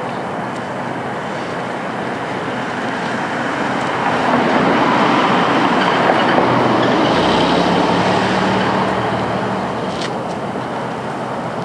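A vehicle passing by: steady traffic noise swells about four seconds in, peaks with an engine hum, and fades away toward the end. A single small click comes near the end.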